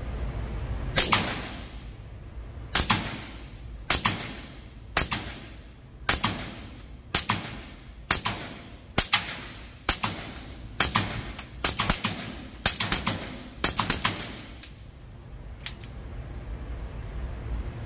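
A .22 LR pistol fitted with a B&T .22 Tiger suppressor fired with subsonic hollow-point rounds: about twenty suppressed shots at an uneven pace, some in quick pairs, each with a short echo off the indoor range. The shooting stops near the end.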